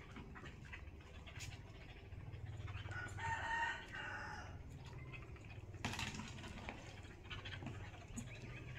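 A short, pitched animal cry about three seconds in, the loudest sound, over scattered knocks and scuffles from a dog and a baby monkey tussling, with a low steady hum underneath.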